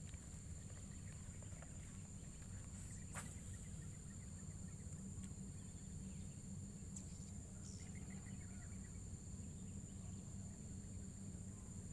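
Insects droning steadily at a high pitch over a low steady rumble, with one sharp click about three seconds in and a few faint chirps later on.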